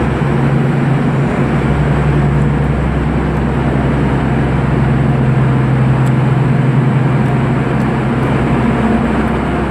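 Diesel engine of an MTA R156 work locomotive running steadily: a loud, even low hum under a constant wash of engine noise.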